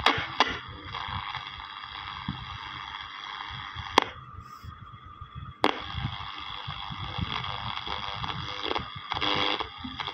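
Combat Zenon TR-089 two-band portable radio giving out hiss and static from its speaker while being tuned. About four seconds in a sharp click cuts most of the hiss, and a second click about a second and a half later brings it back as the band selector switch is moved.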